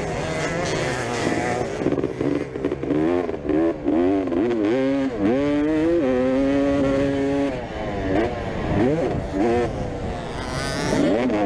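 Motocross bike engine revving hard, its pitch climbing and dropping over and over as the throttle opens and closes, with a held steady note for a second or so past the middle.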